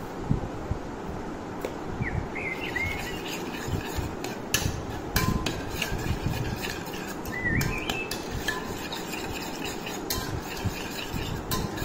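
A steel spoon stirring orange pulp, juice and sugar in a stainless steel bowl: wet sloshing with frequent sharp clinks where the spoon knocks against the bowl, at irregular intervals.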